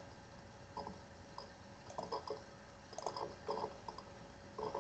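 Quiet pause on an open call microphone: low steady hiss with a few faint, brief ticks and indistinct small sounds scattered through it.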